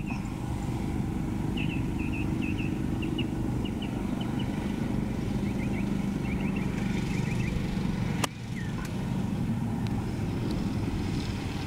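A single sharp click about eight seconds in: a wedge striking the golf ball on a short pitch from the rough. Under it is a steady low hum, with faint high chirps in the first several seconds.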